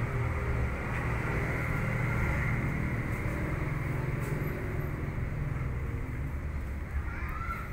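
A steady low rumble, with a short rising-and-falling call near the end.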